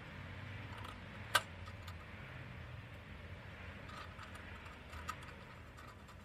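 Small parts of an antique kitchen scale clicking and tapping as they are fitted back into its housing during reassembly, with one sharp click about a second and a half in and a smaller one near the end, over a low steady hum.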